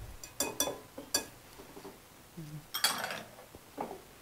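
Wire whisk clinking against a glass mixing bowl while beating an egg and yogurt mixture: a few sharp clinks in the first second or so, then a louder clink with a short ring about three seconds in and one last tap near the end.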